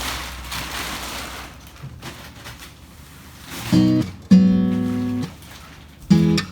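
Background music: acoustic guitar strumming chords, coming in about halfway through after a soft hiss.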